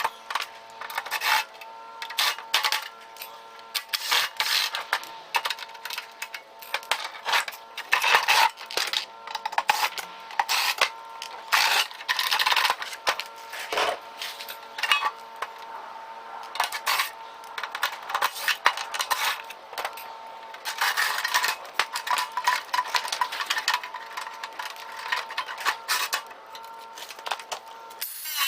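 Irregular metallic clinks, rattles and scrapes of hand tools and sheet-metal parts as a microwave oven is taken apart, over a steady hum that holds throughout.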